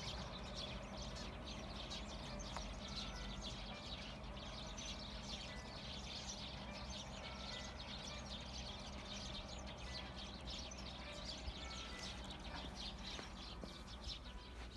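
Small birds chirping over and over in the background, over a low steady rumble.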